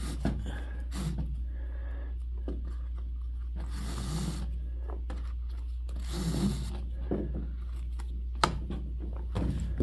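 Drum rope being pulled and rubbed through the hoop of a wooden bass drum as its string tensioning is unlaced: two longer rasping rubs about four and six seconds in, small knocks of wood and a sharp click near the end. A steady low hum runs underneath.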